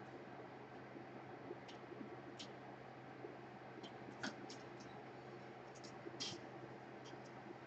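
Faint, irregular light clicks and ticks, about a dozen, the loudest about four and six seconds in, over a steady low hum.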